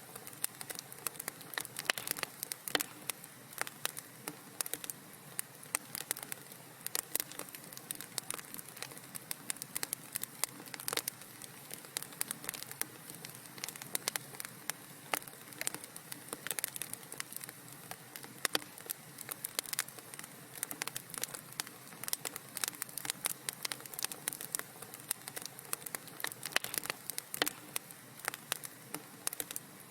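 Wood fire crackling in a fireplace: a dense, irregular stream of small pops and snaps over a soft steady hiss.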